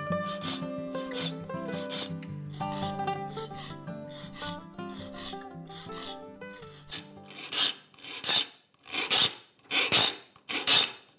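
Saw file rasping through the gullets of a handsaw's teeth, one short stroke per gullet at about two strokes a second, sharpening a newly bought saw. Soft background music runs under the filing for the first seven seconds or so. After that the file strokes stand out louder on their own.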